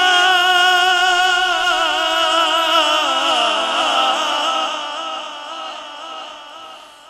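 A man's voice singing a naat, holding one long wavering note with echo that fades away over the last few seconds.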